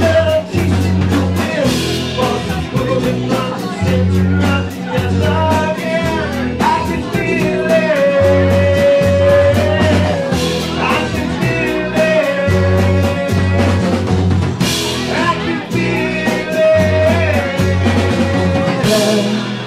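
Live rock band playing: drum kit with steady cymbal ticks and occasional crashes, bass guitar, guitars and long held notes in the melody line. The bass drops out near the end.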